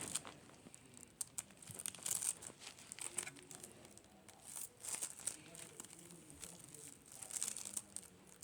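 Slime being squished and pulled by hand, giving short spells of sticky crackling and popping every second or two.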